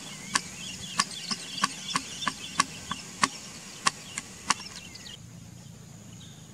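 A quick, irregular run of about a dozen sharp knocks, which stops about four and a half seconds in. Underneath are faint bird chirps and a steady high insect drone.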